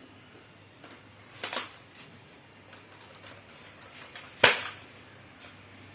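Hard plastic clicks and knocks from the parts of a painted Nerf blaster being handled and fitted together: a double knock about a second and a half in, and a loud, sharp click about four and a half seconds in.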